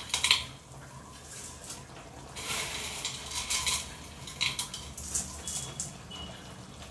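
Dry roasted vermicelli being tipped from a plate into a pot of boiling broth and pressed in by hand: a sharp clatter of the plate against the aluminium pot just at the start, then a rustle of the stiff dry strands sliding in, with scattered clinks.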